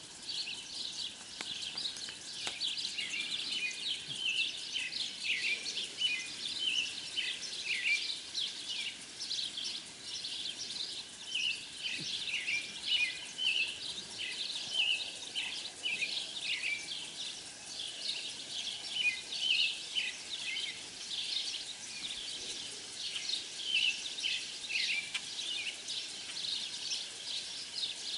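Small songbirds chirping steadily: many short, high chirps, each sliding downward, several a second and overlapping.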